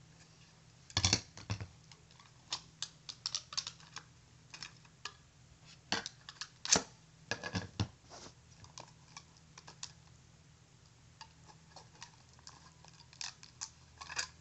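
Irregular clicks, taps and crinkles of small boxed card decks and their packaging being handled and pulled off their backing, in scattered clusters with a quieter stretch in the second half, over a steady low hum.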